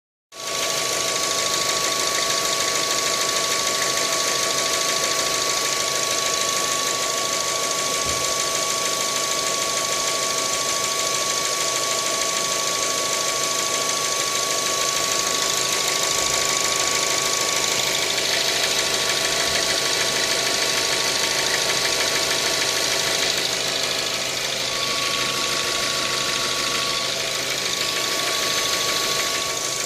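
A 2012 Mazda 3's 1.6-litre engine, at 107,000 km, running steadily with a knock in the engine.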